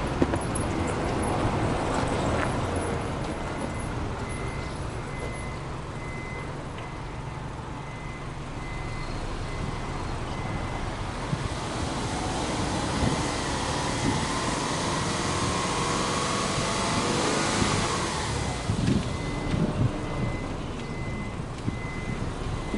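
Exhaust note of a Subaru Legacy B4 2.0i's naturally aspirated 2.0-litre flat-four (boxer) engine, heard at the tailpipe, running steadily with a low rumble. The sound swells slowly between about 8 and 18 seconds in, then eases off.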